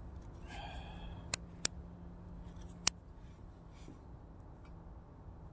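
Camp cooking gear and a plastic oil bottle being handled: a brief squeak about half a second in, then three sharp clicks over the next couple of seconds.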